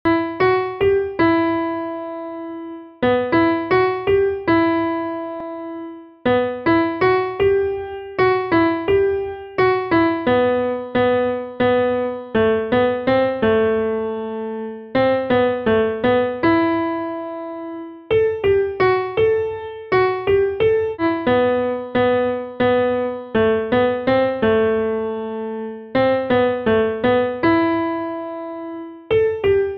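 Background piano music: a simple melody of single struck notes in short phrases, each note dying away, with brief pauses between phrases.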